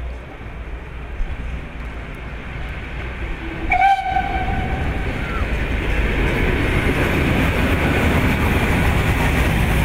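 CFL 5519, a 2-10-0 steam locomotive, sounds its whistle once for about a second, about four seconds in. The locomotive then passes close by, its running noise building and staying loud.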